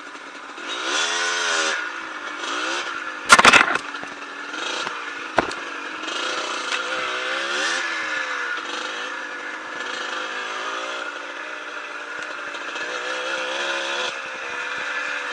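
Yamaha DT125 two-stroke enduro engine revving up and down as it is ridden on a muddy trail. A loud clattering knock comes about three and a half seconds in, the loudest sound, and a sharper single knock follows about two seconds later.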